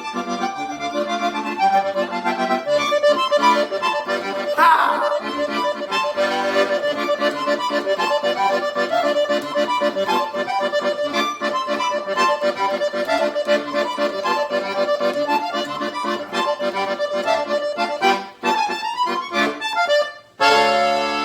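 Accordion playing the melody over a band with bass and percussion. Near the end the playing breaks off briefly and a held chord comes in.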